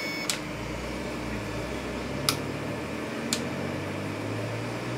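Orcinus 3D printer's LDO stepper motors humming and whirring as it prints its first layer at high speed and acceleration, the low tones shifting in pitch as the head changes moves, over a steady fan hiss. Three short sharp clicks come about a third of a second, two seconds and three seconds in.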